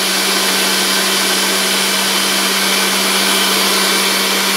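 Personal bullet-style blender motor running steadily at full speed, blending milk and mango into a milkshake. A constant hum sits under the even motor noise.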